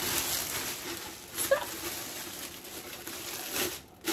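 Clear plastic oven bag rustling and crinkling as it is opened out and pressed down into a stainless steel stock pot, with a short squeak about a second and a half in.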